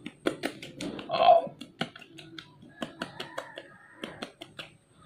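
Quick, irregular soft taps and clicks of fingertips patting BB cream onto the cheek, with a short vocal sound about a second in.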